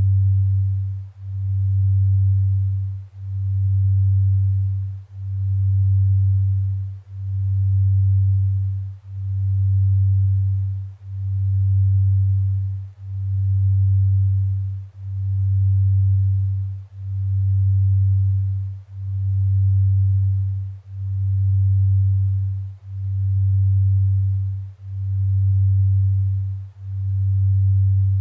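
Binaural-beat tone for delta-sleep brainwave entrainment: a single low pure tone that swells and dips evenly about every two seconds, with nothing else in the sound.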